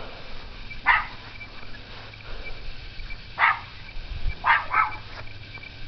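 A dog barking: four short, sharp barks spread over a few seconds, the last two close together.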